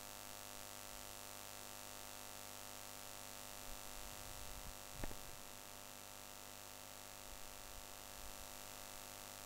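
Steady electrical mains hum and faint hiss from the recording setup, with a single sharp click about five seconds in.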